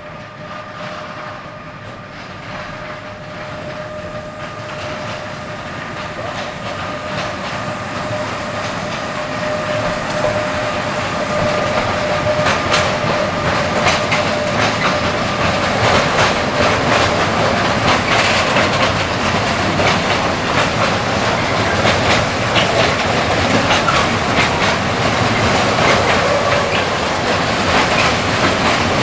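A Bombardier TRAXX electric locomotive hauling a freight train of tank wagons, growing louder as it approaches. A steady whine fades as the locomotive passes, and the rhythmic clickety-clack of the tank wagons' wheels over the rail joints follows.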